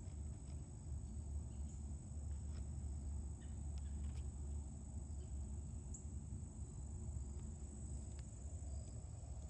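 Crickets trilling steadily in a high, thin, unbroken tone, over a louder low rumble, with a few faint ticks.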